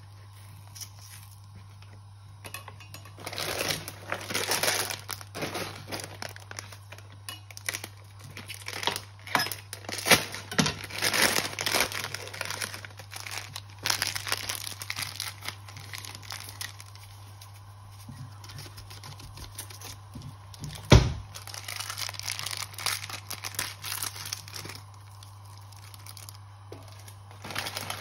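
Plastic instant-noodle seasoning sachets crinkling and tearing in irregular bursts as they are opened and emptied. One sharp knock comes later on, over a steady low hum.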